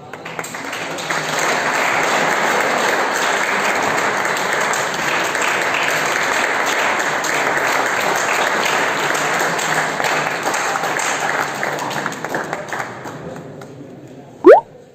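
Audience clapping and applauding. It swells over the first second, holds steady, then fades after about twelve seconds. Near the end a brief, loud squeal rises sharply in pitch.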